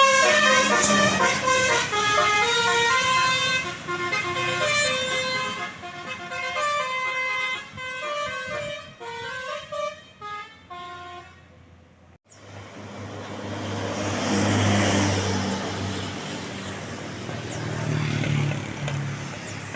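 Tour bus 'telolet' horn playing a quick multi-note melody in stepped pitches, fading away over about twelve seconds. After an abrupt cut, a large vehicle's engine and road noise swell and pass.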